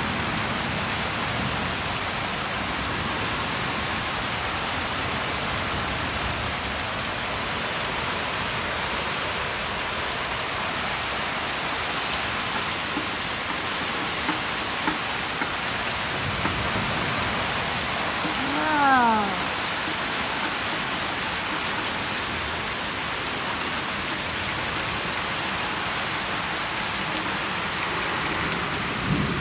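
Heavy rain pouring steadily onto a wooden deck and the trees around it, from the back end of a hurricane. Just before halfway through the second half, a short pitched sound slides down in pitch for about a second.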